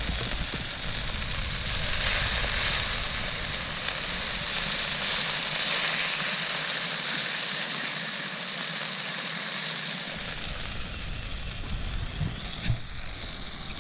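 Food sizzling in a pan over a campfire: a steady frying hiss, with two sharp pops near the end.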